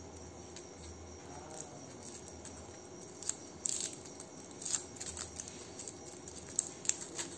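Aluminium foil cupcake liner crinkling and crackling as it is peeled off a baked cupcake by hand, in a run of sharp crackles from about three seconds in.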